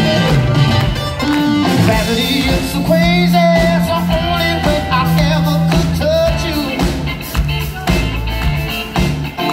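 A soul band with a horn section playing live, with electric guitar, bass, drums and horns. A man sings over it with a wavering, held voice in places.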